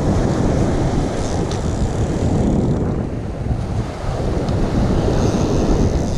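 Wind buffeting the microphone over breaking surf: a steady, loud noise without any distinct events.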